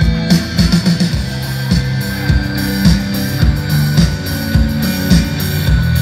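Band music with drums and guitar played loudly through large PA speaker cabinets, with heavy bass and a punchy kick drum.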